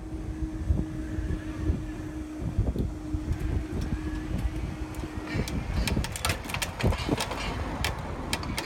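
Level crossing barriers rising, with a steady hum from the barrier mechanism that stops about five seconds in as the booms reach upright. Wind rumbles on the microphone throughout, and sharp clicks and knocks follow near the end.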